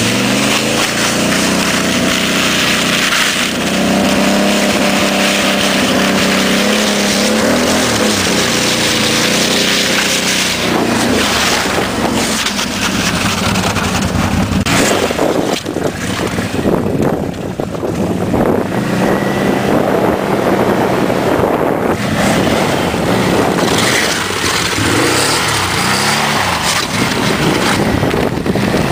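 Can-Am Outlander 800 ATV's V-twin engine running under way, its pitch rising and falling as it tows a sled across snow and ice, with wind noise on the microphone through the middle stretch.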